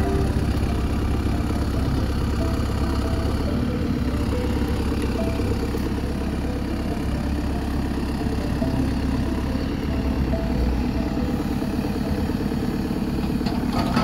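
JCB 3CX backhoe loader's diesel engine running steadily under heavy load as the front loader bucket pushes into a tree.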